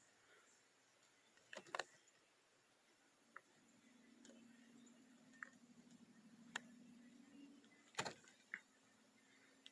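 Near silence, broken by about half a dozen faint, sharp clicks spread through it, with a faint low hum in the middle.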